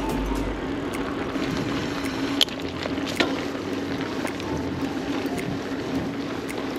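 Giant Talon 4 mountain bike ridden on a dirt trail: steady tyre and wind noise, with a couple of sharp clicks from the bike around the middle.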